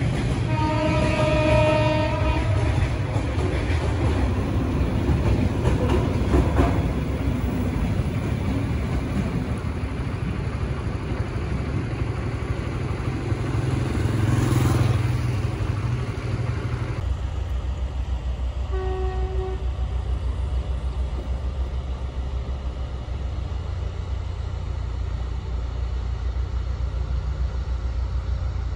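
Diesel-hauled container freight train rolling past with a steady low rumble of wheels on rails, with the locomotive's horn sounding for about two seconds near the start. Later a shorter, fainter horn toot sounds over a continuing low rumble.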